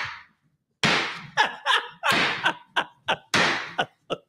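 Wooden gavel banging repeatedly on a desk: about ten sharp knocks in quick, uneven succession, starting about a second in.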